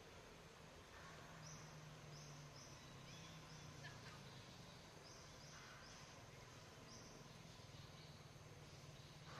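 Near silence: faint outdoor ambience, with a few short, high chirps in small groups.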